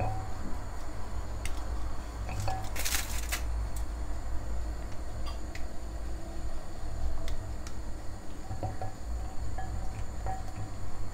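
A bar of milk chocolate is snapped into squares by hand and the pieces are dropped into a glass bowl. There are scattered sharp snaps, a quick run of them about three seconds in, and light clinks of chocolate on the glass that ring briefly.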